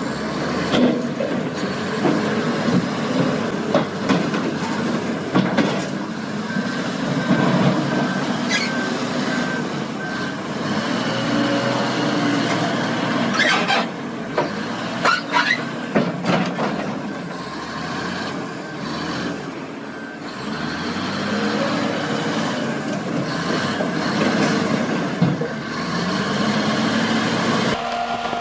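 Heavy construction machinery working, its diesel engine noise mixed with metallic clanks and knocks, several sharp ones in the middle. A reversing alarm beeps faintly in stretches.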